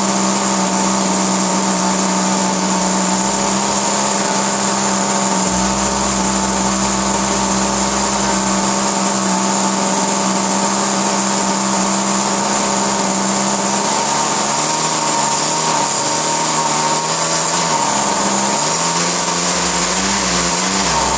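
ASP 56 model aircraft glow engine running with its propeller on a test bench, being broken in on a rich fuel setting. It holds a steady high speed for most of the time, then its revs begin to waver up and down near the end.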